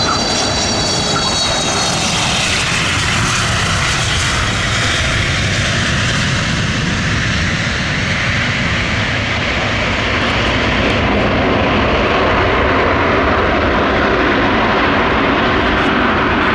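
Antonov An-178's twin Progress D-436 turbofans at take-off power as it climbs away low, a loud steady roar. A high turbine whine sits over it at first and fades within the first couple of seconds.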